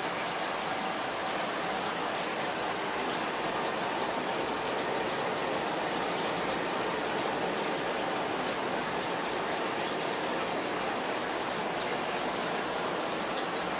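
Turtle aquarium's filter running: a steady, rain-like splashing and trickling of water, with bubbles streaming through the tank.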